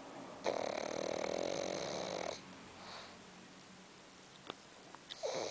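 Pug snoring in its sleep: a snore of about two seconds, then a faint breath, and another snore starting near the end.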